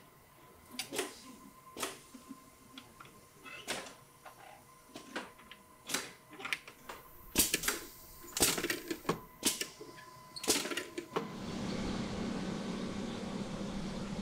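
Irregular sharp plastic and metal clicks and clacks from a motorcycle helmet being fitted to a pneumatic test rig, over a faint steady whine. About 11 seconds in they give way to steady street noise with a low hum.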